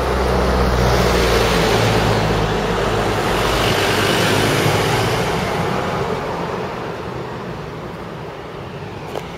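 Road traffic passing close by: a bus's engine rumble and tyre noise, loud at first, then fading over the last few seconds as it goes past.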